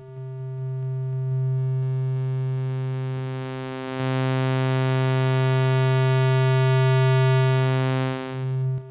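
Native Instruments Reaktor software synthesizer holding one steady low note while a selector crossfades its oscillators from sine through triangle and square toward a saw-like wave. The tone turns brighter and buzzier from about a second and a half in, giving hybrid waveforms, with brief dips in level near four and eight seconds.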